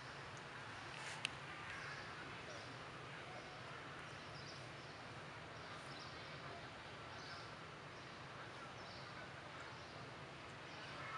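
Quiet outdoor ambience: a steady hiss with faint short high chirps repeating about once a second, and a single sharp click just over a second in.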